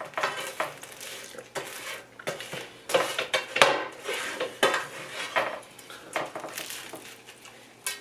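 Close-up eating sounds from a meal of chicken cheesesteak sandwiches and tater tots: a string of irregular short clicks, crunches and clinks of food and utensils at the plate.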